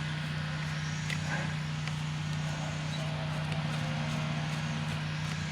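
Steady low hum, with a few faint light clicks about a second in as a screwdriver works a screw inside a car's side-mirror housing.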